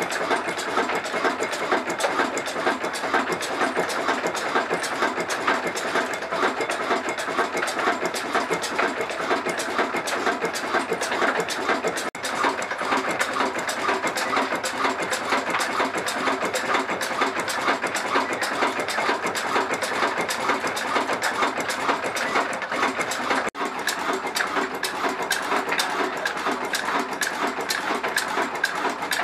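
Old Ruston Hornsby stationary diesel engine running steadily, with a fast, even mechanical clatter from its valve gear and fuel pump. The sound briefly drops out twice.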